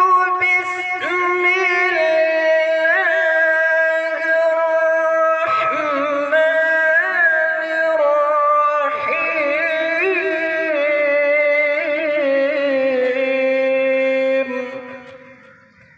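A male qari's voice chanting Quran recitation (tilawat) in long melodic phrases, holding and ornamenting each note with a wavering pitch; the last long note trails off near the end.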